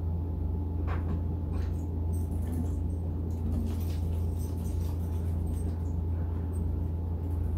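A finger-licking smack, then paper towel rustling and crackling as a sheet is pulled from the roll and torn off. A steady low electrical hum lies under it all.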